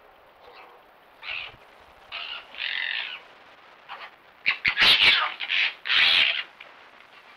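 Red foxes scuffling at play, giving a run of short, harsh calls that come close together and loudest past the middle, with a few sharp clicks among them.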